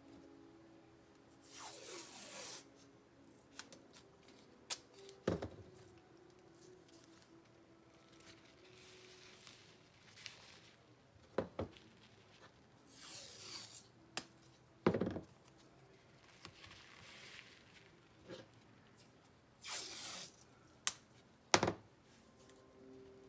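Blue painter's tape being pulled off the roll and torn into strips: three rasping pulls, with several sharp knocks in between.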